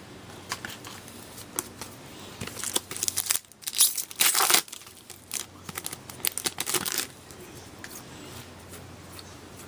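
A 2014-15 Upper Deck Series 1 hockey card pack wrapper being torn open and crinkled by hand. The crackling comes in irregular spurts, loudest around the middle.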